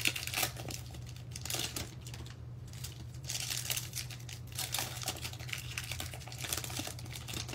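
Foil trading card pack wrapper crinkling in irregular bursts as hands work it open and tear the top seal.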